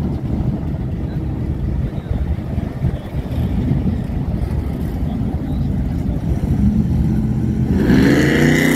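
Vehicle engines idling with a steady low rumble, one revving up near the end.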